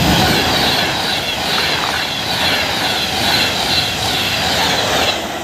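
Class 390 Pendolino electric train passing through: a loud, steady rush of wheels and air with high whining tones that fall in pitch, easing off near the end.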